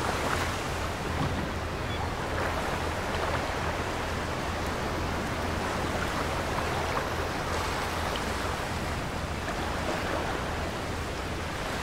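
Steady sea ambience: waves washing against a rocky shore, with a low steady rumble underneath.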